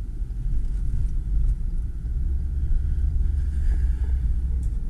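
Low, steady rumble of a Lexus car heard from inside the cabin: engine and road noise, with no distinct events.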